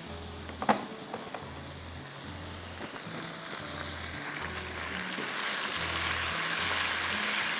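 Ginger-garlic paste and ground spices sizzling in hot ghee in a frying pan while being stirred with a spatula, the sizzle swelling louder in the second half. A short clink comes about a second in, and soft background music with a repeating bass line plays underneath.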